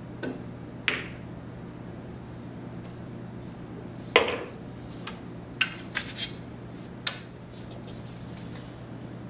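Pool balls clacking in a nine-ball game. There are light clicks in the first second as the cue ball is struck and hits an object ball. A sharper, loudest ball clack comes about four seconds in, followed by several lighter clicks, over a steady low hum.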